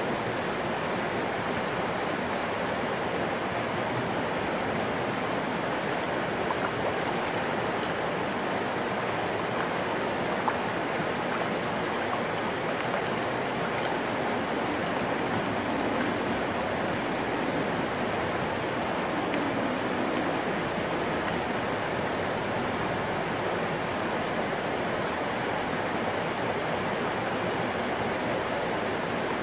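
Creek water flowing with a steady, even rush.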